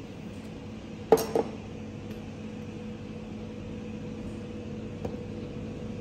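Two sharp clinks of barware on a hard counter about a second in, a quarter-second apart and briefly ringing, then a lighter tap near the end. A steady low machine hum runs underneath.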